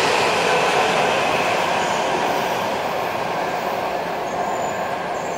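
Washington Metro train pulling out of an underground station: a steady rushing run of wheels on rail that fades gradually as the last car leaves.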